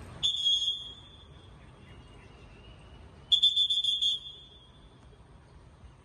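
A shrill, high-pitched trilling tone sounds twice, each blast under a second long and about three seconds apart.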